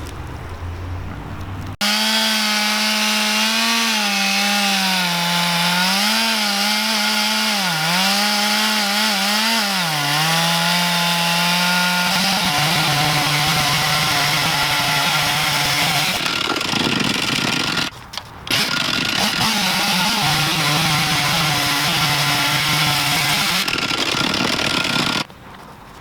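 Stihl MS 460 two-stroke chainsaw running at high revs in a chainsaw mill, its pitch wavering up and down. About halfway through the pitch drops lower and rougher as the saw is loaded in the cut through the log. The sound breaks off briefly about two-thirds through, then stops abruptly near the end.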